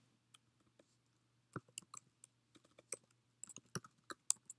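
Typing on a computer keyboard: a run of irregularly spaced key clicks that starts about a second and a half in, after a near-silent start.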